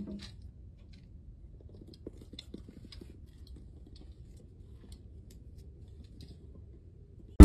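Quiet outdoor background with a faint low rumble, a soft thump at the very start and scattered faint small ticks and clicks.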